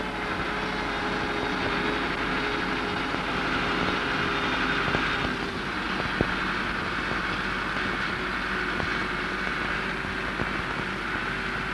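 Steady drone of an engine running at a constant speed, with a couple of faint clicks near the middle.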